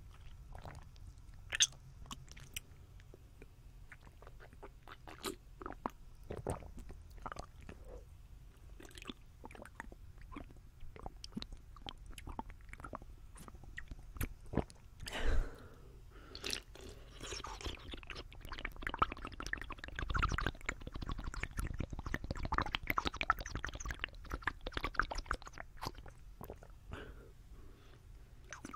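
Close-miked wet mouth sounds of someone sipping water from a plastic bottle: sips, swallows and scattered wet clicks. A dense run of fine wet crackling comes about two-thirds of the way through.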